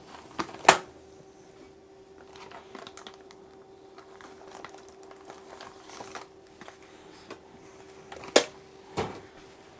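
Test probes being fetched and handled: a pair of sharp clicks near the start and two more near the end, with small scattered ticks and rustling in between, over a faint steady hum.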